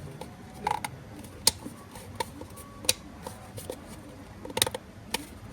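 Two pieces of an adjustable-angle round camera mount being pressed and snapped together: a series of separate sharp clicks and creaks, the loudest about one and a half seconds in and a quick cluster of clicks near the end.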